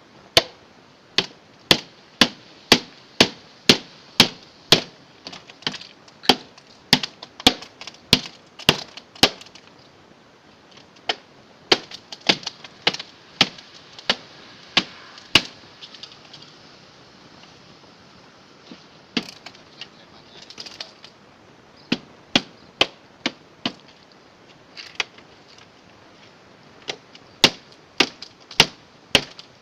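A refrigerator being broken up by hand with repeated sharp chopping blows, about two a second. The blows thin out to a few scattered strikes midway, then come quickly again near the end.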